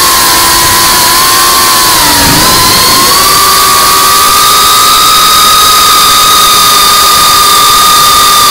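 FPV racing quadcopter's brushless motors and propellers whining steadily at high throttle, picked up by its own onboard camera with heavy propeller and wind noise. The whine steps up a little in pitch about three seconds in.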